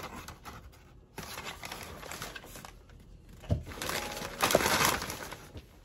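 Packing paper crinkling and rustling as it is pulled and crumpled around plastic armor pieces in a cardboard box. It gets louder in the second half, with a short knock about three and a half seconds in.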